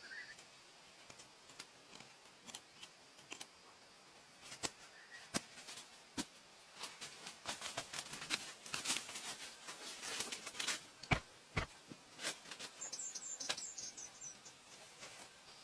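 A series of sharp clicks and taps, thickest in the middle, with rustling between them, and a few brief bird chirps, one cluster of high chirps near the end.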